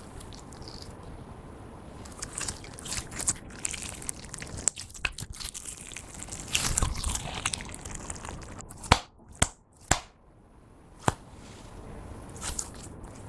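Clear slime being squished and stretched by hand, giving wet clicking and crackling pops, with a few louder sharp snaps in the second half.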